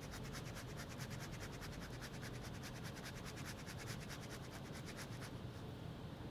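A block of pecorino cheese being grated on a fine rasp grater: fast, even scratching strokes, several a second, that stop about five seconds in.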